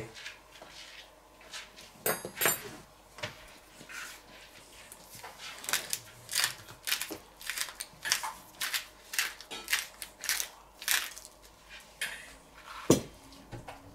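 Wooden salt and pepper mills twisted by hand over a plate of food, each turn a short crunchy grind, about two a second. A clink of tableware about two seconds in, and a single knock near the end.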